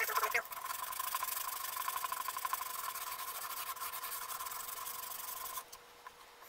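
Hand sanding the wooden neck of a ukulele kit with a small piece of sandpaper, in rapid back-and-forth rubbing strokes that stop near the end.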